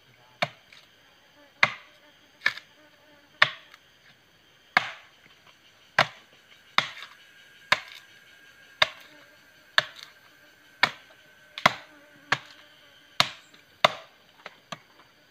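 Agarwood (gaharu) tree trunk being chopped by hand with a parang machete: sharp blade strikes into the wood, about one a second, some sixteen in all.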